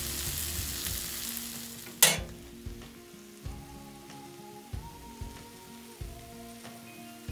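Sausage slices, pierogies and vegetables sizzling in a frying pan on a camp stove. About two seconds in there is a single sharp click, and after it the sizzle is much fainter.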